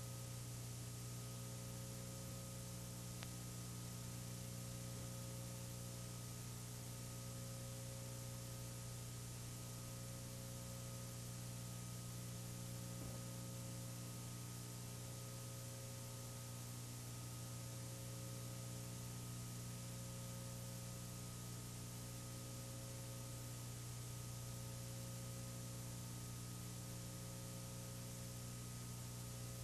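Steady electrical mains hum with an even hiss over it, the background noise of an old analog video recording; no other sound stands out.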